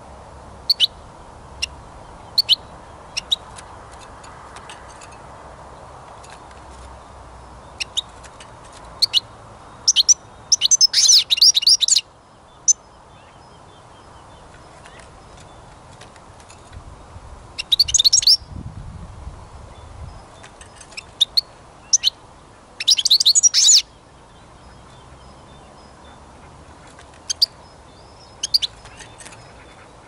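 European goldfinch singing: scattered single chirping call notes and three short bursts of rapid twittering song, each a second or two long.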